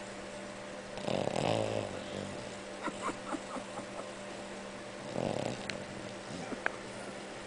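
A dog snoring in its sleep: two snoring breaths, one about a second in and another about five seconds in, over a steady hum. A few short clicks fall between and after the snores.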